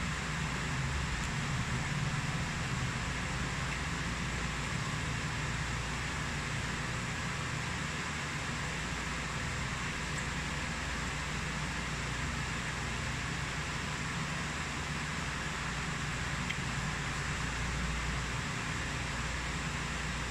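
Steady, unbroken background noise: a constant hiss over a low hum, with no distinct sounds standing out.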